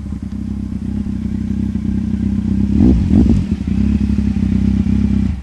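Kawasaki Z750's inline-four engine idling through a short G&G Moto2 exhaust with its dB-killer removed, blipped twice in quick succession about three seconds in, then settling back to idle before the sound cuts off.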